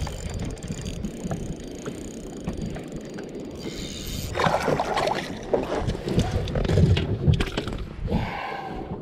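Spinning reel being cranked as a hooked smallmouth bass is reeled in, then splashing and a few knocks in the second half as the fish is lifted out of the water into the boat.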